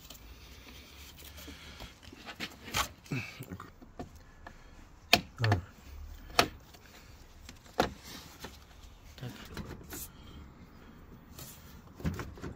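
Scattered sharp clicks and knocks of a BMW E38's plastic radiator mounting brackets and clips being pried loose with a tool and the radiator being shifted in its mounts, about seven in all, the loudest a little past the middle.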